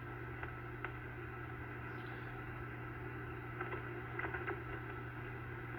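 Low, steady hiss and hum from an Anytone AT-5555N2 radio's speaker turned down, with a few faint clicks.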